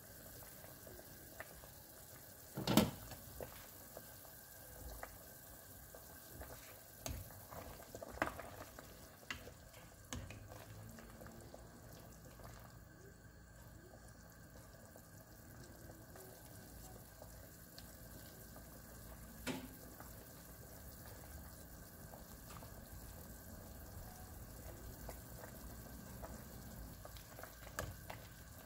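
Chicken and onion soup simmering in a stainless steel pot, a faint steady bubbling, stirred with a ladle. A few sharp knocks on the pot, the loudest about three seconds in, others around eight and twenty seconds.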